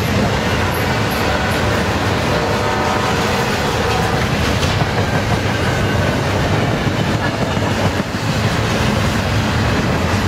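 Model freight train running steadily, its cars rolling over the track and across a steel truss bridge.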